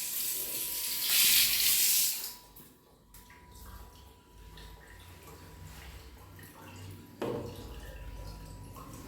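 Water running with a strong hiss for about two seconds, then dropping to a quieter flow, then a sudden stronger gush about seven seconds in.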